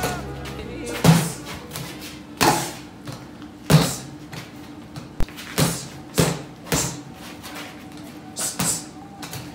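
Boxing-gloved punches thudding on a reflex bag in an uneven rhythm, about nine hits, some as quick doubles, over faint background music.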